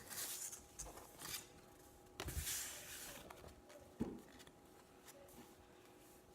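Faint rustling and sliding of baseball trading cards being handled, with a louder stretch of rustle a little after two seconds and a single light knock about four seconds in.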